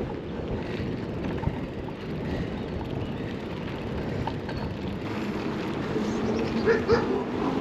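Strong wind buffeting the microphone, a steady low rumble. A few brief pitched sounds come through near the end.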